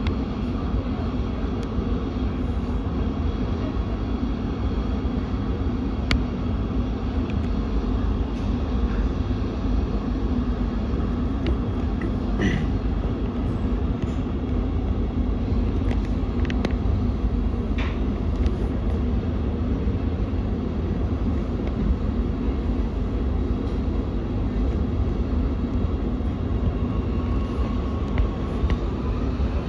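MX3000 metro train running steadily, heard from inside the car: a constant low rumble of wheels on rails, with a few faint clicks and squeaks.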